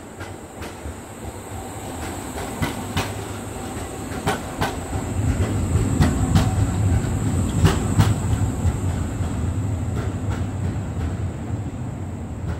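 A Škoda 15T articulated low-floor tram passing close by: a low rumble that swells to its loudest about six to eight seconds in and then eases off as it pulls away. Its wheels click over a rail joint in quick pairs, four pairs in all.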